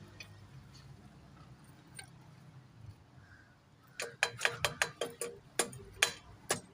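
Metal tools and engine parts clinking: a quick run of sharp metallic taps, about four a second, starting a bit more than halfway in, over a faint low hum.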